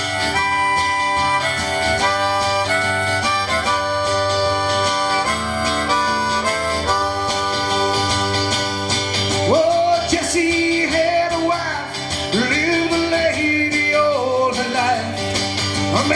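Live band instrumental break: a harmonica plays over guitar. It holds long steady notes, then from about halfway through plays sliding, wavering notes.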